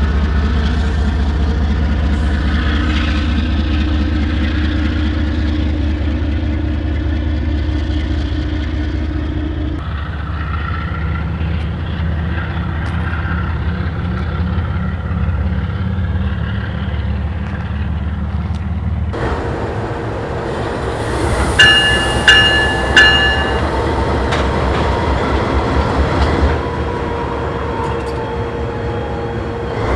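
GE ES44AC diesel locomotive engine rumbling at low throttle as the train pulls away. It cuts to a GE AC4400CWM locomotive with its 16-cylinder diesel running close by. Its horn gives three short chord blasts, then the engine note rises as it throttles up.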